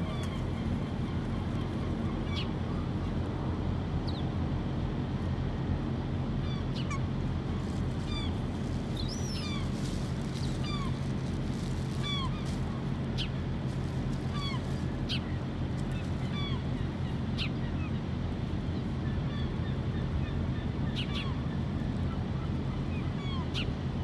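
Gulls calling in short, scattered cries over a steady low rumble.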